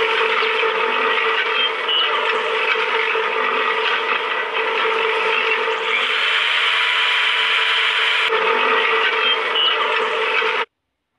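Homemade miniature chaff cutter running, its motor-driven bladed wheel spinning and chopping grass stalks: a steady mechanical whir with a constant hum. It stops suddenly near the end.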